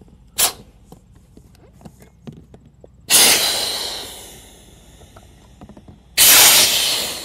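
Air hissing out of an inflatable kayak's recessed valves as the valve stems are pushed open for deflation. A brief puff comes first, then two loud hisses about three seconds apart; each starts suddenly, and the first fades over a second or two as the chamber's pressure drops.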